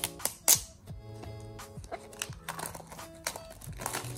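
The tear strip on an Apple Pencil (2nd generation) box being pulled and the wrap crinkling. A sharp rip comes about half a second in, and more tearing and crinkling follow near the end, over background music.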